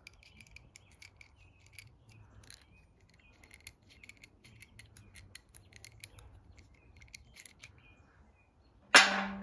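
Faint, scattered small metal ticks and scrapes as a broken threaded chain-screw piece is worked loose by hand from a ceiling fan's light-kit switch housing. Near the end comes a single sudden loud knock with a short ring.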